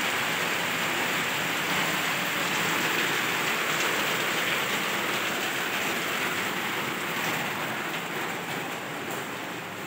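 Heavy rain falling steadily, a dense even hiss, easing slightly over the last few seconds.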